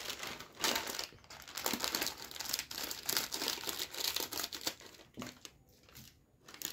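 Crinkling and crackling of a metallized plastic snack packet being handled and torn open by hand, in irregular bursts with a short lull near the end.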